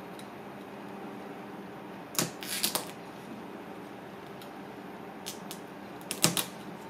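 A knife blade cracking and prying open a cooked mud crab's leg shell on a cutting board. Quick sharp cracks and clicks come in a cluster about two seconds in and another near the end, over a steady background hum.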